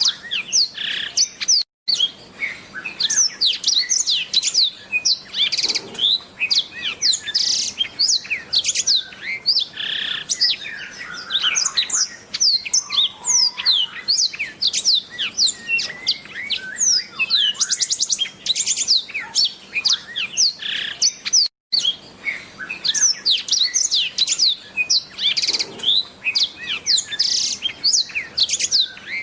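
A black-throated canary (the 'blackthroat' of Indonesian songbird keeping) sings a long, fast, unbroken song of high chirps, trills and quick downward sweeps. The sound cuts out for an instant twice.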